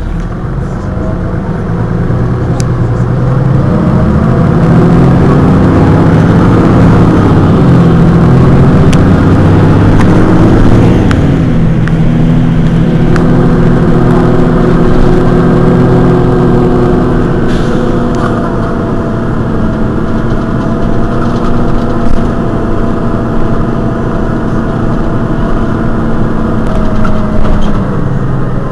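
Mercedes-Benz Citaro city bus's rear-mounted diesel engine running while the bus stands still, heard from close behind the engine bay. Its note rises slowly for several seconds, drops back about eleven seconds in, then holds steady.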